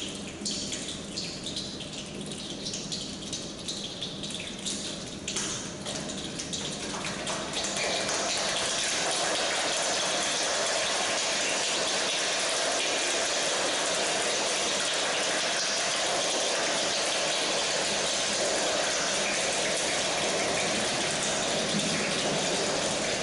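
A large group of children making rain with their hands. Scattered taps and claps like the first drops build, about seven seconds in, into a dense, steady patter like heavy rainfall.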